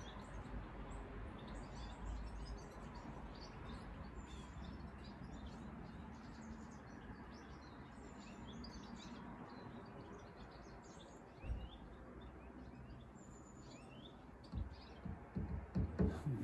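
Small birds chirping over a steady outdoor hiss, with a few soft knocks about two-thirds of the way in and near the end.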